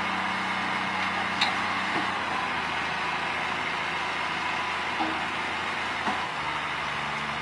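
Scania tipper truck's diesel engine running steadily as the hydraulic ram raises the loaded dump bed, its note dropping slightly about six seconds in, with a few faint knocks.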